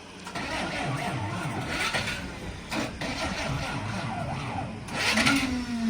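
Truck's starter motor cranking the engine unevenly without it catching, with a sharp knock about halfway through and a louder stretch with a steady low tone near the end; the battery is flat.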